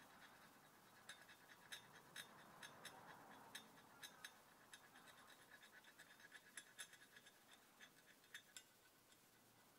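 Fine-pointed scribe picking and scratching at the etching stencil on a steel billhook blade: faint, irregular ticks and scratches that stop shortly before the end.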